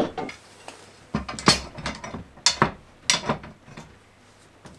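Steel screw clamps being handled and shifted on a wall rack: metal clanks and rattles in several short clusters, then lighter handling noise.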